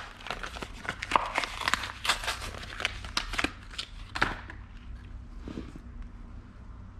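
Packaging being handled: crinkling and irregular clicks and rustles that die down about four seconds in, over a steady low hum.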